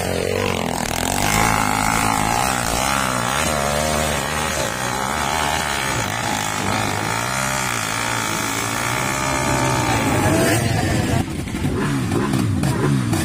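Dirt-bike engine revving, its pitch rising and falling over and over.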